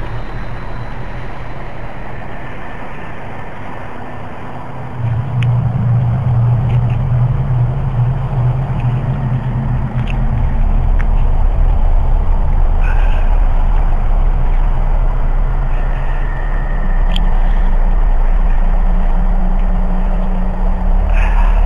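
Loud low rumbling drone with a steady hum under it, swelling about five seconds in and deepening again about ten seconds in. This is the strange rumble, unlike thunder, that seemed to come from the air and sky, recorded on a cellphone and boosted with a compressor/limiter.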